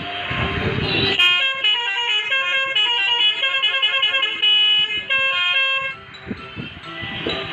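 A multi-tone musical horn plays a quick tune of stepping notes. It starts about a second in and stops near six seconds, over a steady rushing engine and road noise.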